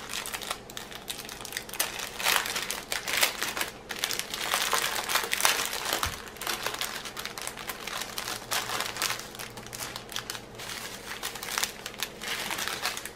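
Thin clear plastic bags of round diamond-painting drills crinkling and crackling as they are handled, a dense run of short crackles that stops abruptly at the end.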